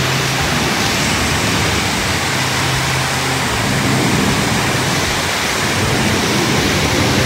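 Steady rush of water from a waterfall pouring into a lazy river, heard close to the water's surface.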